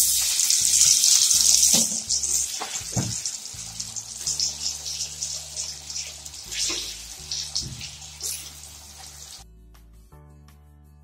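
Flattened boiled potato pieces sizzling as they go into hot ghee for a second frying: a loud hiss for the first two seconds that settles into crackling and fades out about nine seconds in. Soft background music plays underneath.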